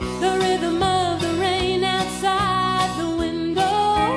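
Country song recording: a sustained lead melody with vibrato and pitch slides over a full band with guitars and bass.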